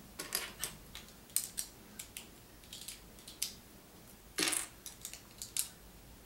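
Small plastic Lego pieces clicking and clattering as they are picked through and handled: a string of light, sharp clicks, with one slightly longer clatter about four and a half seconds in.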